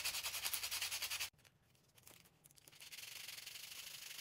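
Pink foam buffer block rubbed quickly back and forth over long acrylic nail tips, a fast run of scratchy strokes that cuts off suddenly a little over a second in. After a pause the buffing resumes as a quieter, steadier rasp.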